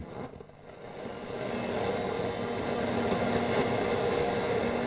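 Grundig 3060a valve radio's loudspeaker giving a steady hiss and rush of shortwave static as it is tuned, with faint steady tones underneath and no station coming through; the noise swells up over the first second or two and then holds.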